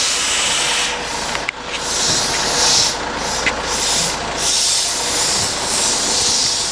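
Loud rushing hiss that swells and fades several times.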